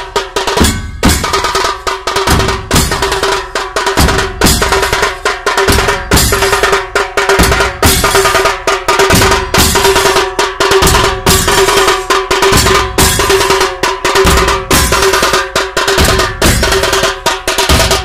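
Large stick-beaten drums, in the style of Muharram procession drumming, played hard in a fast, unbroken rhythm of many strokes a second, with a steady ringing note under the beats.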